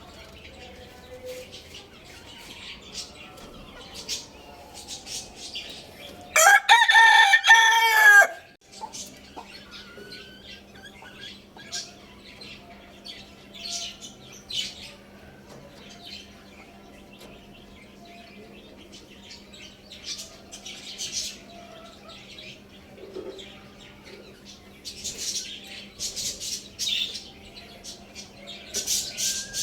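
A rooster crows once, loud, for about two seconds starting some six seconds in, rising and then falling away. Around it come many short high chirps and clucks from other birds, and a steady low hum sets in just after the crow.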